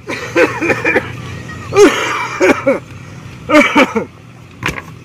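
A man making wordless pained vocal sounds in three short bursts, the pitch bending up and down, over a steady low hum. There is a sharp tap near the end.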